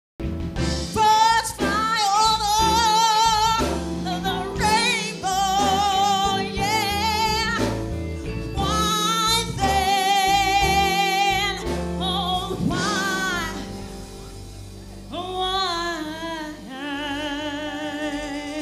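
A woman singing live into a handheld microphone over instrumental backing: long held notes with a wide vibrato, joined by sliding vocal runs.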